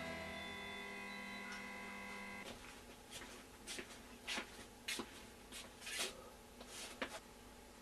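Soft music fading out over the first two and a half seconds, then a string of sharp metallic clicks and clacks over the next four seconds, from a front door's locks and latch being worked.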